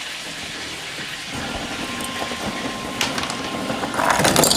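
Refrigerator-door ice dispenser running with a steady whir, then ice cubes clattering out near the end.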